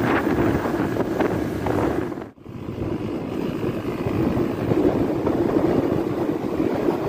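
Wind rushing over the microphone of a moving motorcycle, mixed with the motorcycle's engine and road noise. The sound cuts out briefly about two seconds in, then resumes as before.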